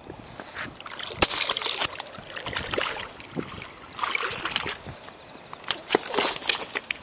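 Water splashing and sloshing in irregular bursts, mixed with sharp clicks, starting about a second in.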